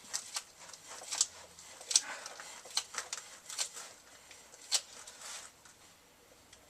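Irregular light clicks and scrapes of a spin-on oil filter being turned onto its threads by hand and snugged hand-tight, with a few sharper knocks.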